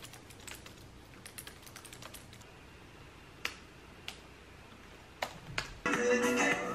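Typing on a laptop keyboard: scattered clusters of key clicks, thinning to a few single clicks after about two seconds. Near the end, music comes in and is much louder than the typing.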